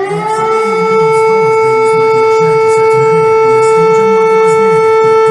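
Civil defence siren winding up over about a second, then holding one steady tone.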